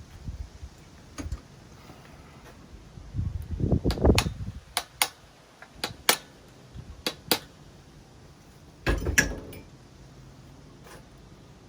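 Metal fork parts and hand tools clinking and knocking as they are handled on a workbench, a string of sharp clicks with two denser rattling clusters about a third of the way in and near three-quarters.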